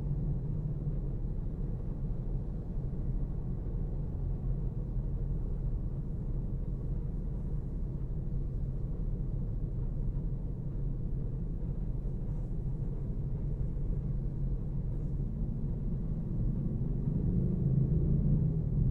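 Low, steady rumble heard from inside a car's cabin while the car sits at a red light, with traffic crossing the intersection.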